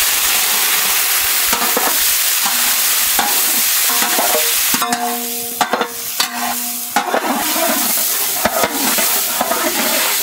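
Chopped shallots, tomatoes, green chillies, ginger and garlic sizzling in hot oil in a large brass pot as a long brass ladle stirs and scrapes them, with several sharp knocks of the ladle against the pot.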